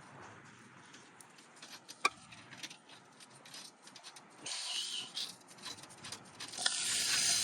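Hand work on a car's engine mount: scattered small clicks and a sharp knock about two seconds in, then two stretches of rubbing and scraping, one around the middle and a louder one near the end, as the parts and bolts are handled.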